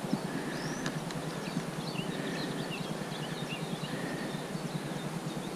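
Small birds chirping in many quick, short calls over a steady low rushing background.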